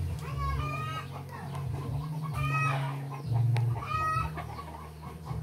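A chicken calling three times, short pitched calls about a second and a half apart, over a steady low hum.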